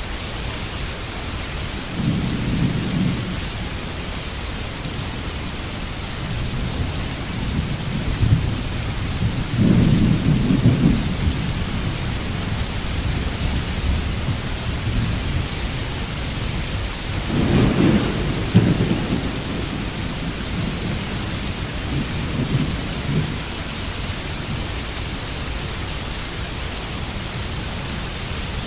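Steady rain of a thunderstorm, with low rolls of thunder that come and go several times, loudest about ten and eighteen seconds in.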